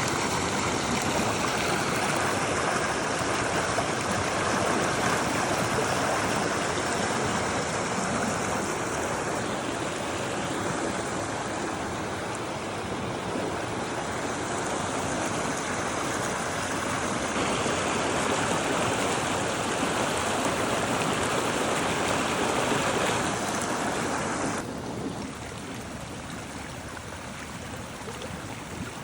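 Running water, a steady rushing noise with no distinct events. Its tone shifts abruptly a few times, and it drops quieter about 25 seconds in.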